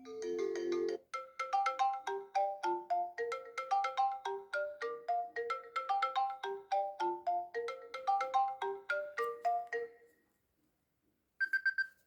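iPhone 4S ringtone: a short opening chord, then a bright, fast repeating melody of short notes that fades out about ten seconds in. Near the end, after a moment's quiet, a brief run of quick high notes begins.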